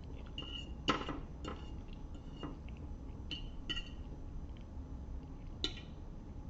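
Fork clinking against a plate of spaghetti: about six sharp clinks with a short ring, the loudest about a second in and another strong one near the end.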